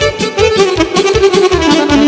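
Instrumental Romanian folk dance music from a live band: a quick melody line over a steady, fast beat.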